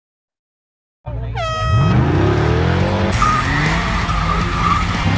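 About a second of dead silence, then a car engine revving hard with tyres squealing in a burnout. It opens with a loud falling blare like a horn.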